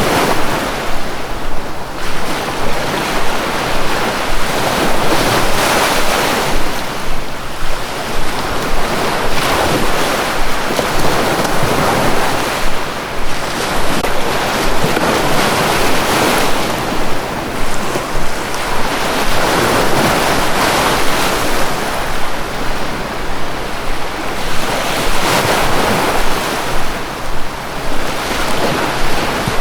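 Sea waves washing onto a shore, a continuous surf rush that swells and eases every few seconds.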